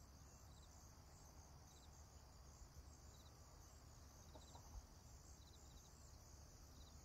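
Near silence: faint background hiss with soft, brief high chirps recurring every second or so.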